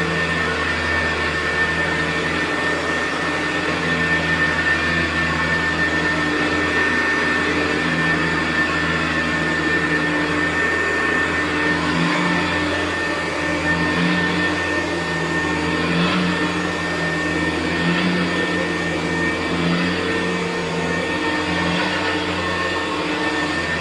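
Hoover U4007 upright vacuum cleaner running on carpet: a steady motor drone with a constant high whine, and a low part that wavers slightly as it works.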